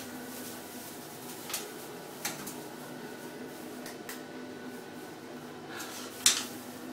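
Dry hay rustling and crackling as ferrets burrow and scramble through it, in a few short sharp bursts, the loudest about six seconds in, over a steady low hum.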